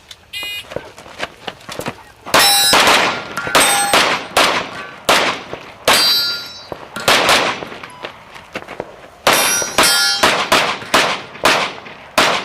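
A shot timer's start beep, then about two seconds later a fast string of pistol shots, many in quick pairs, with steel targets clanging and ringing as they are hit.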